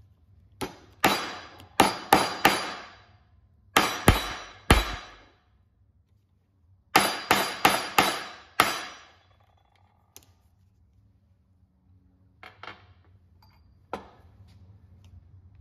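Steel hammer striking copper rivets to set them through thick leather: sharp, ringing metallic blows in three quick bursts of about five, three and six strikes, then only a couple of faint taps near the end.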